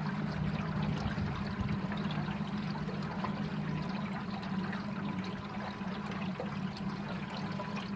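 A small boat's motor running steadily with a low hum as the boat trolls slowly, with water splashing and trickling along the hull.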